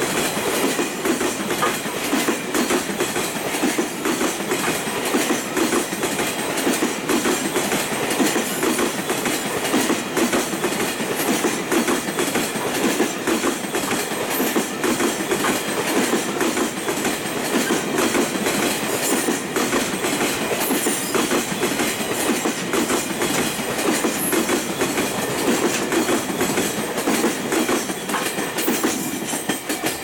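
Container wagons of a long freight train rolling past close by, their wheels clattering steadily over the rail joints in an unbroken run of clickety-clack.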